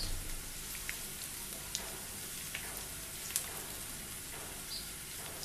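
Sliced onions frying in hot oil in a pan: a steady, soft sizzle with scattered small crackles.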